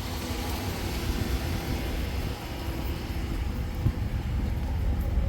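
Road traffic passing, a steady engine-and-tyre hum, with a low gusty wind rumble on the microphone.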